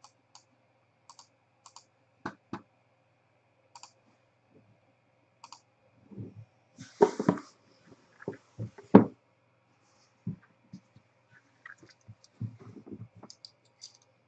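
Light, scattered clicks and taps on a tabletop, with a run of louder knocks and rustling about six to nine seconds in: cards and packaging being handled.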